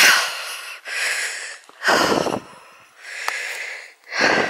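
A walker's heavy breathing close to the microphone, about one breath every second.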